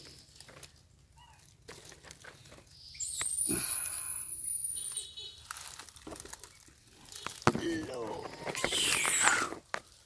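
Leaves and twigs rustling, with loud high-pitched animal calls about three seconds in and again near the end, sliding up and down in pitch.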